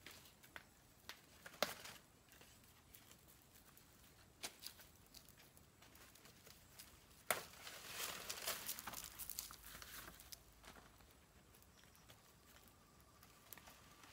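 Small handling noises: scattered light clicks and taps, with a stretch of crackling rustle from about seven to ten seconds in.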